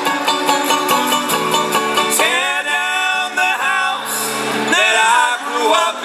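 Live acoustic band music with plucked guitar strings. Sung vocals, without clear words, come in about two seconds in.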